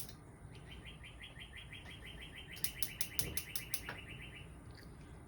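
Gas cooktop burner's spark igniter clicking rapidly, about seven or eight ticks a second, while the knob is pressed and held to light the burner; the clicking stops about a second before the end.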